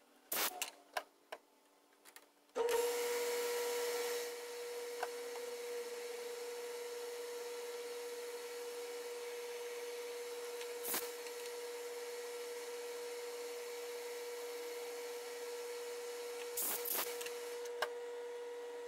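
A few clicks, then a metalworking lathe starts about two and a half seconds in and runs with a steady whine, louder for its first second or so. A few short noises near the end.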